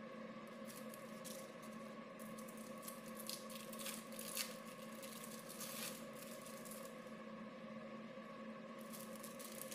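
Plastic wrappers of cheese slices crinkling as they are peeled off by gloved hands, in a few short rustles, over a steady hum.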